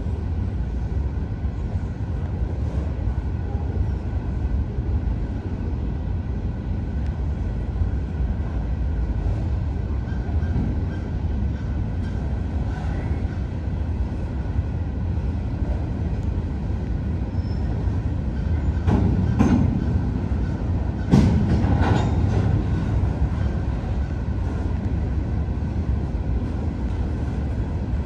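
Freight train of open-top hopper cars rolling past: a steady low rumble of wheels on rail, broken by a short run of loud clanks about two-thirds of the way through.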